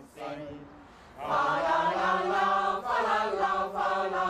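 Church choir singing in several voices, holding long sustained chords that change slowly; the singing comes in loud about a second in after a quieter opening.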